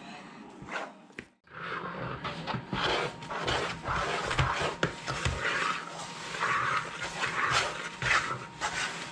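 Hands squeezing and working stiff buttermilk soda bread dough in plastic mixing bowls: a dense run of irregular, breathy squishing and rubbing strokes.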